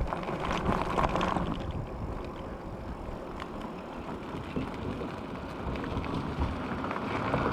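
Fat-tire e-bike rolling along a paved street on Vee Tire ZigZag 20x4 street tires, with a steady rush of wind over the microphone.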